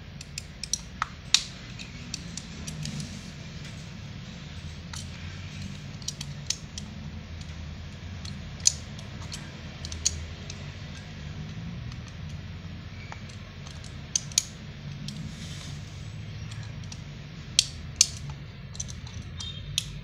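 Utility-knife blade prying at the seam of a small plastic remote-control case, giving scattered sharp clicks and snaps as the shell is worked at. A steady low hum runs underneath.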